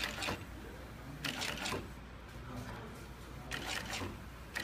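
Galaxy side wall stitcher, a shoe-sewing machine, running in three short bursts of rapid stitches over a steady low motor hum.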